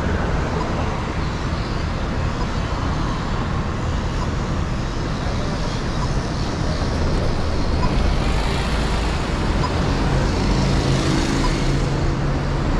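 City street traffic at a busy intersection: a steady wash of passing cars and running engines. Near the end a steady engine hum from a vehicle close by comes in.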